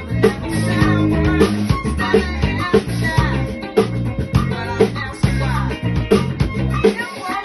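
Fender Custom Shop electric bass playing a busy funk bass line over a full band track with drums and a singing voice.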